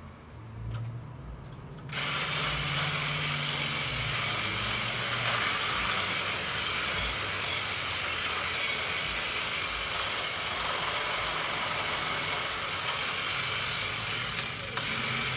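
Hedge trimmer running: a low engine hum for about two seconds, then a sudden loud, steady rushing noise as the machine works, with a brief dip near the end.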